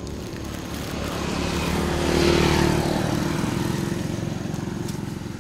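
A motor vehicle's engine passing by on the road, growing louder to a peak about two seconds in and then fading away.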